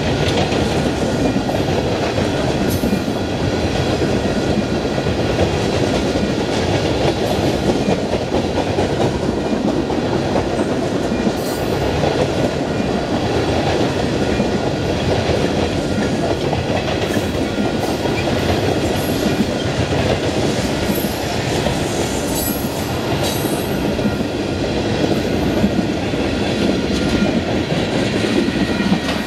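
Freight train tank cars rolling past close by: a steady rumble of steel wheels on rail with clickety-clack as the wheels cross the rail joints.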